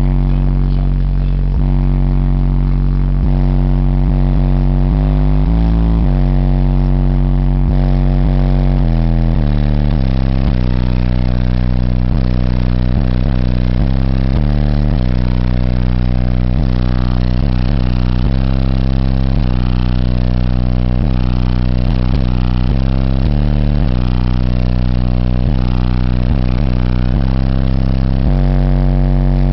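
Deep bass music played loud through a car audio system of four 15-inch Digital Designs subwoofers. The low bass notes change pitch in steps every second or so.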